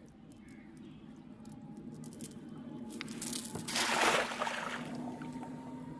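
A cast net thrown over shallow floodwater, its weighted rim hitting the surface in one splash that is loudest about four seconds in and lasts about a second. A faint steady hum runs underneath.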